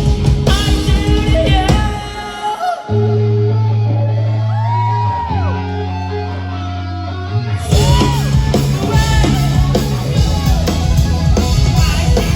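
Rock music with singing and guitar. About two seconds in, the full band drops away to steady held low notes under a sliding voice, and it comes back in full a little past halfway.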